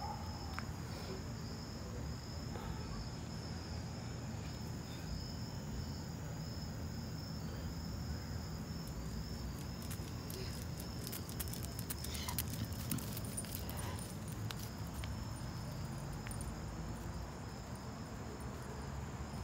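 Crickets chirping in a steady, high-pitched chorus over a low outdoor rumble, with a brief flurry of small clicks and ticks about halfway through.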